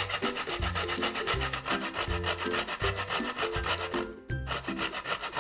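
Peeled cassava root being grated on the fine side of a stainless steel box grater: quick, even rasping strokes. Background music with a bass line runs underneath, and both drop out briefly about four seconds in.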